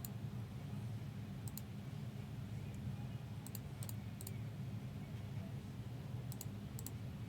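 Faint, scattered clicks, a few isolated and a few in quick pairs, over a steady low hum.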